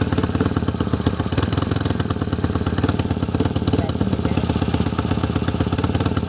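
Tata Nano's small two-cylinder petrol engine idling roughly, its fast exhaust pulse uneven: the engine is misfiring, even with a new ignition coil and new plug leads fitted.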